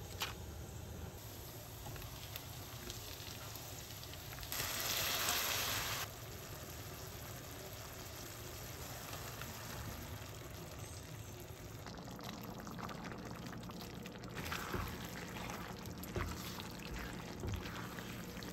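Stovetop cooking: pasta bubbling in a pot of boiling water, then shrimp, cherry tomatoes and cream sauce simmering and sizzling in a pan as they are stirred with a wooden spatula. About five seconds in there is a louder rush of noise lasting a second and a half.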